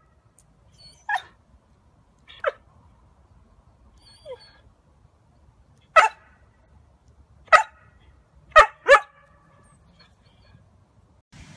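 Rough collie barking: short single barks every second or two, the last two in quick succession.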